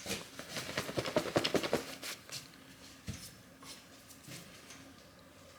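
A tape measure being handled: a quick rattle of fast clicks for about two seconds, then a single knock about three seconds in.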